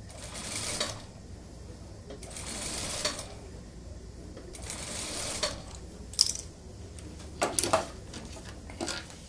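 Industrial lockstitch sewing machine stitching in three short runs of about a second each, sewing a suit sleeve into the jacket's armhole in stops and starts while the cloth is eased in by hand. A few sharp clicks follow in the second half.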